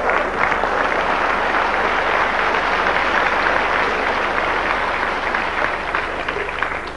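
Studio audience applauding, a dense steady clapping that swells at the start and eases off near the end.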